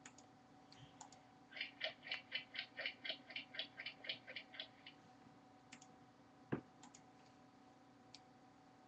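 A run of rapid, evenly spaced clicks, about five a second for about three seconds, then a few scattered clicks and one sharp click, the loudest, past the middle.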